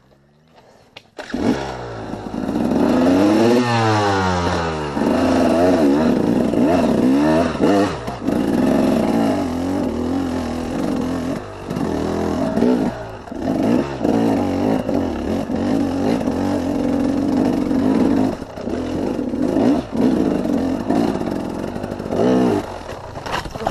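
KTM 300 two-stroke single-cylinder dirt bike engine starting up about a second in, revved up and down, then held at high revs with repeated brief dips as it climbs a rocky trail, easing off near the end.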